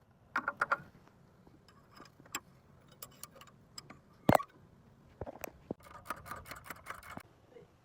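A scatter of short clicks and clinks from small hard objects being handled, in clusters near the start and through the second half, with one sharper, louder knock about four seconds in.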